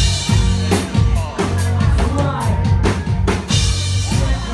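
A live band playing loudly, with heavy drum-kit hits and cymbal crashes over electric guitar and bass.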